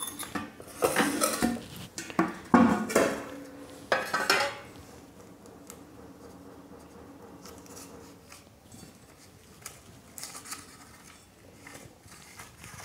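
Kitchen utensils clattering and clinking for the first few seconds, then quiet with a few small knocks.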